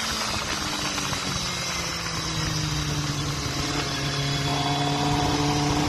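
Kawasaki ZXR250's inline-four engine running under way, its pitch easing down slowly over the first few seconds and then holding steady, with wind rushing past.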